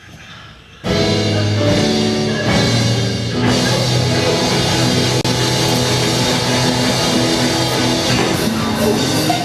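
Loud rock band music starts abruptly about a second in: sustained electric guitar chords over a steady bass line and drums.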